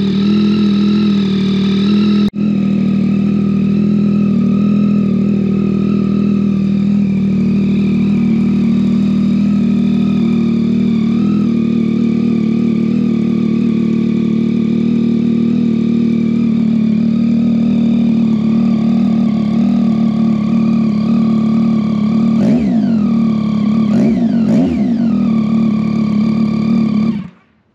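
Yamaha XSR900's 890 cc inline-three engine running steadily at idle through a Kelpi Custom Moto shorty aftermarket exhaust, loud, then switched off abruptly just before the end.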